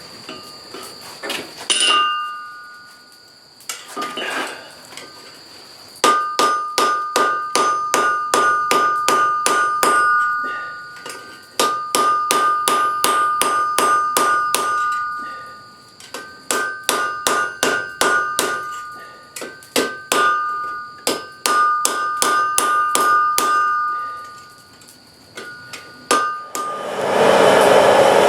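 Blacksmith's hammer striking iron on an anvil in quick runs of blows, about four a second, the anvil ringing clearly after each strike, with short pauses between runs. A loud rushing noise starts near the end.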